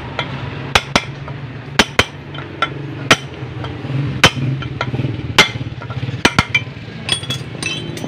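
Hammer blows on a metal drift rod driving a ball bearing into an aluminium motorcycle crankcase of a Yamaha DT125 two-stroke engine, tapping around the race so it goes in evenly until fully seated. Sharp metallic strikes come roughly a second apart, with a quicker run of taps near the end.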